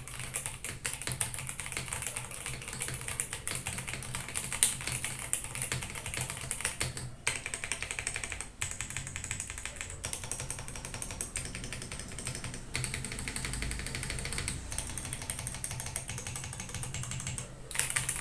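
Attack Shark K86 mechanical keyboard with Blue Whale switches being typed on fast and continuously: a dense run of key clacks, broken by a few short pauses.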